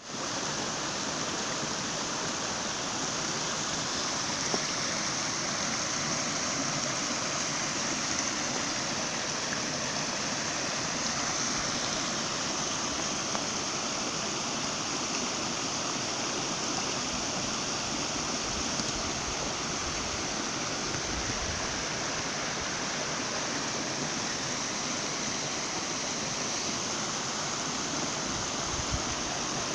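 River water flowing over and around rocks: a steady rushing sound.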